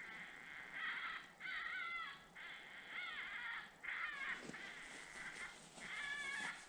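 Lucky Duck Rebel electronic predator call playing a distress sound for coyotes: a string of short, wavering, whining cries, each under a second long, one after another with brief gaps.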